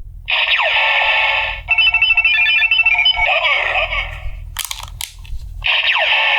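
DX W Double Ridewatch toy playing electronic sound effects through its small built-in speaker, with a run of quick beeps about two seconds in and a couple of sharp clicks around the middle.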